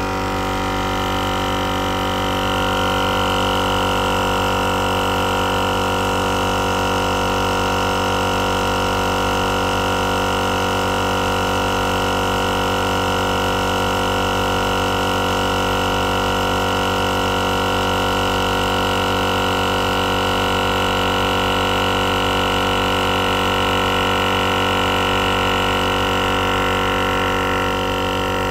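GSPSCN dual-cylinder 12V portable air compressor running with a loud, steady drone as it inflates a truck tire, its gauge climbing past about 25 PSI on the way to 40 PSI.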